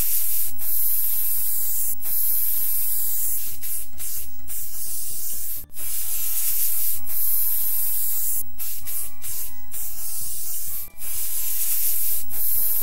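A loud, steady spraying hiss, cut off briefly twice, about five and a half and eleven seconds in, so that it runs as three long spurts, with faint music underneath.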